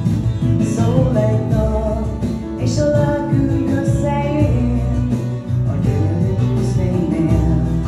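Music: a song with singing over guitar accompaniment.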